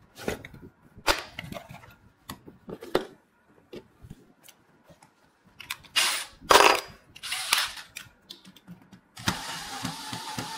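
A run of sharp clicks and knocks of tools against an aluminium window frame. About nine seconds in, a cordless drill-driver starts and keeps running, unscrewing the window handle's fixing screw.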